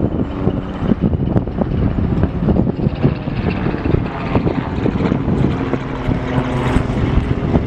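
A 2M62 twin-section diesel locomotive's two-stroke V12 diesel engines running with a steady drone as it approaches.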